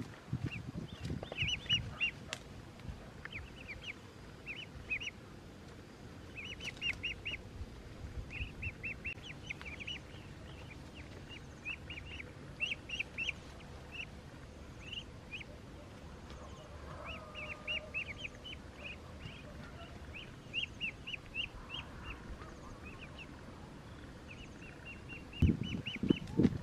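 Ducklings peeping, many short high calls in quick runs, with one lower call about two-thirds through. A short burst of low rumbling noise comes near the end.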